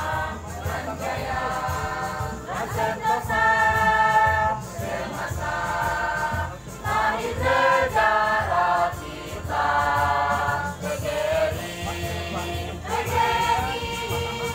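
Amateur choir of women and men singing together, held notes in phrases of one to two seconds with short breaks between them.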